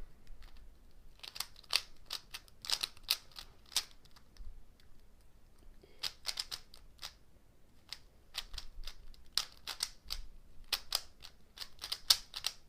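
Dayan Zanchi 3x3 speed cube being turned by hand: quick runs of sharp plastic clicks as the layers snap round, with a pause of about two seconds in the middle.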